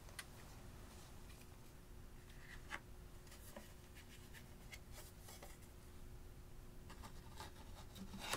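Faint, scattered clicks and taps of small plastic makeup items being handled, among them an eyeshadow palette in a clear plastic case. The sharpest click comes near the end.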